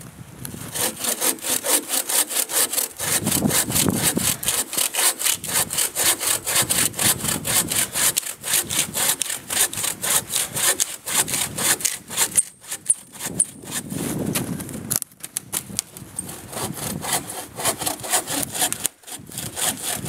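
Hand saw cutting through a fallen log in quick, even back-and-forth strokes, several a second. The strokes break off briefly twice near the end, then resume.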